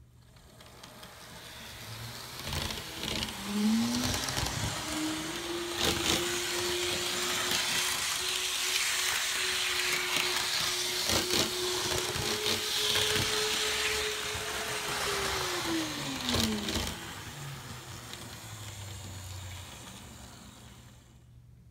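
Electric motor of a Kato N scale GE C44-9W model diesel locomotive running on its track: a whine that rises in pitch as the model speeds up about three seconds in, holds steady, then falls away as it slows near the end. Occasional sharp clicks come from the wheels on the track.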